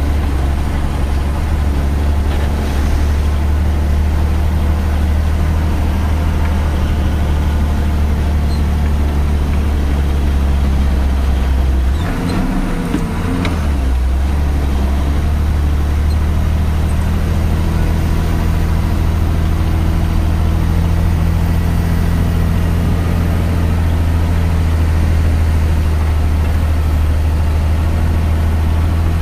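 Tata 3118 truck's diesel engine running steadily under way, heard from inside the cab. Its deep drone dips and shifts briefly about twelve seconds in, then settles again.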